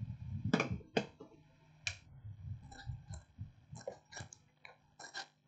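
Faint, irregular clicks and light taps, about eight across five seconds, from small tools being handled at an electronics repair bench.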